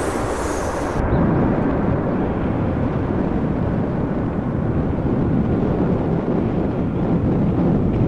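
Boeing 787-8 airliner's low, steady jet rumble after landing, mixed with strong wind buffeting the microphone; a high whine cuts off about a second in.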